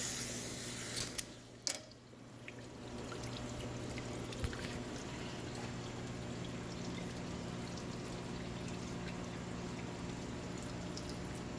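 Coolant from a coolant rig running onto a torch-heated stainless steel shaft to cool it during heat straightening. A hiss at the start dies away over the first two seconds, with one sharp click. From about three seconds in, a steady pouring trickle continues.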